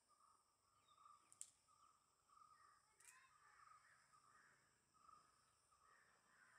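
Near silence: faint outdoor ambience with a faint call repeating every half second or so, and two brief sharp clicks about a second and a half and three seconds in.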